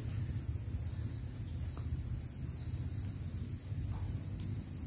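Insects singing in a steady, high-pitched drone of several constant tones over a low rumble.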